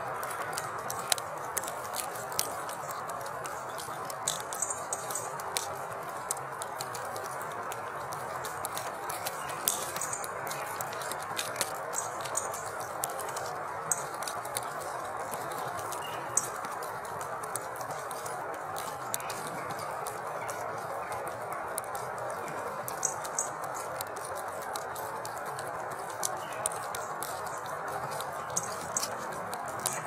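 Steady hiss of falling precipitation, with scattered sharp ticks of drops landing.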